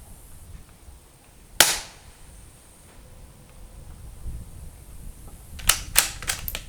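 A single suppressed .22 LR shot from a Ruger RPR bolt-action rifle, a short sharp crack about a second and a half in. Near the end come a quick run of four or five metallic clicks, the bolt being worked to chamber the next round.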